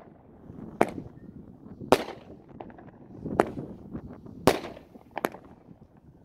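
200-gram consumer firework cake (Dominator Live 25) firing its shots, each shell bursting with a sharp bang. There are five bangs, roughly a second apart, with low rumbling between them.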